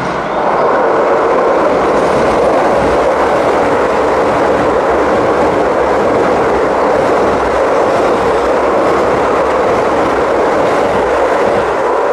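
Keio Line commuter electric train passing through a station at speed without stopping: a steady, loud rumble and rattle of wheels on the rails that swells in the first half second and then holds level.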